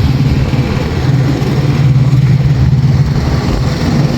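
Diesel engine of a semi truck running steadily at idle, a loud, constant low hum.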